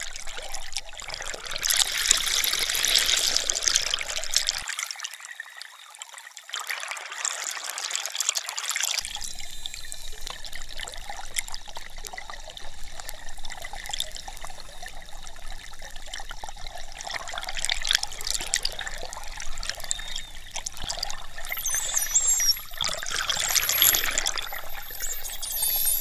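Water rushing and gurgling over an underwater camera moving through the sea, in uneven surges. About 22 seconds in, a few high, gliding whistles of dolphins.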